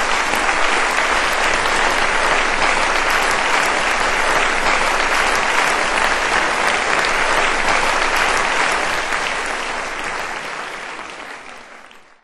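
Audience applauding, steady and loud, then fading in the last couple of seconds before cutting off.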